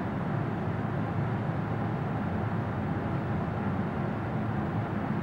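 Steady background noise with a low hum, unchanging and with no distinct sounds in it.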